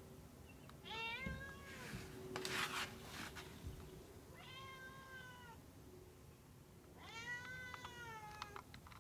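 Domestic cat meowing three times, each meow about a second long, asking to be let in. A short scratchy noise comes between the first and second meow.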